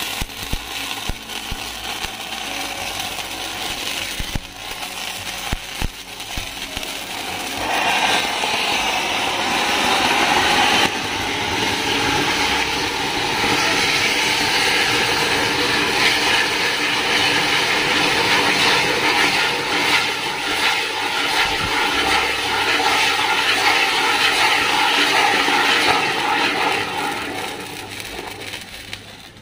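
Flowerpot fireworks (pookkutti) on a homemade propeller wheel burning with a steady hissing rush as they spray sparks. The hiss gets louder about eight seconds in and fades away near the end as the fountains burn out.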